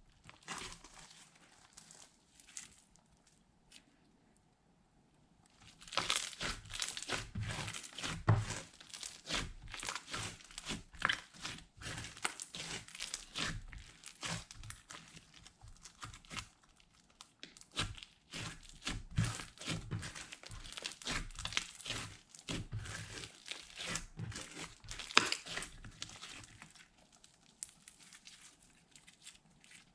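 Slime being squished, kneaded and stretched by hand, making dense wet crackles and small pops. It falls quiet briefly in the first few seconds, then the crackling runs on until near the end.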